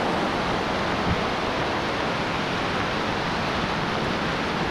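Heavy rain pouring down steadily, a dense, even hiss of rain on the ground and foliage.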